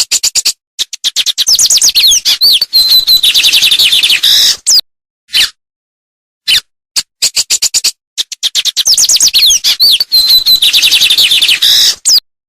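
A songbird singing the same fast song phrase twice: a few sharp clicks, then a rapid run of high chirps and sliding whistled notes lasting about three seconds, with a pause between the two phrases.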